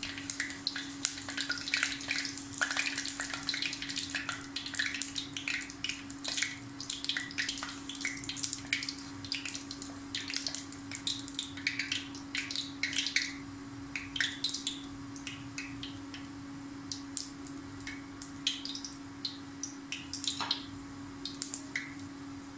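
Fennel seeds and black peppercorns sizzling in hot sesame oil in a clay pot, with a constant patter of small irregular crackles and pops as the spices temper and turn reddish-brown on gentle heat.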